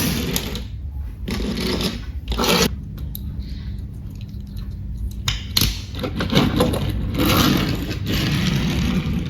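Scraping and rustling in several uneven bursts with short pauses, as a small die-cast toy car is handled.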